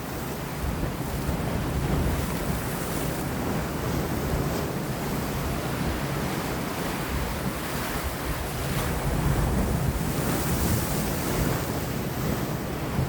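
Sea waves washing against rocks, a continuous surf noise with a heavy low rumble, and wind over the microphone. The surf swells a little about ten seconds in.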